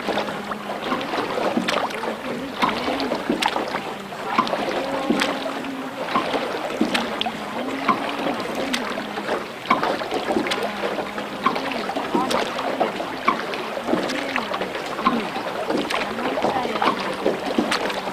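Indistinct voices talking over a steady low hum, with scattered clicks and knocks.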